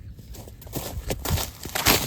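Rustling and crunching footsteps through grass, getting louder about halfway through.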